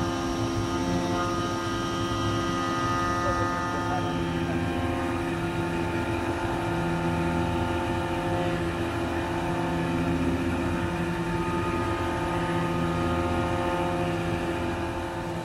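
A 5-axis CNC machine milling a car crankshaft: the spindle runs with a steady hum of several tones over the hiss of coolant spray. Some higher tones drop out about four seconds in, and a lower tone swells and fades roughly every second and a half as the cutter works the crank throws.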